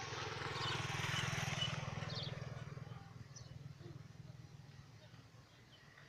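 A motor vehicle passing, its engine hum and noise swelling to a peak about a second and a half in and fading away by the middle. A few short, high bird chirps sound faintly over it.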